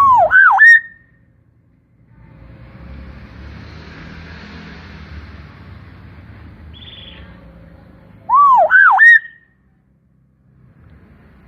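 Hill myna giving a loud whistled call of three quick swooping notes, twice, about eight seconds apart.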